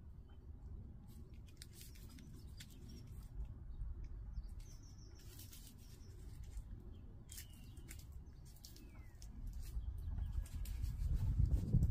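Hands working loose soil and pressing onion sets into it, making short scratchy rustles, over a low rumble that grows louder near the end. A small bird chirps twice about seven seconds in.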